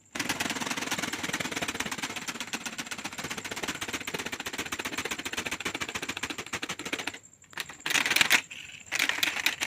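Rubber-band-powered ornithopter with plastic-bag wings flapping rapidly, a fast, even clatter. It drops out briefly about two-thirds of the way through, then starts again.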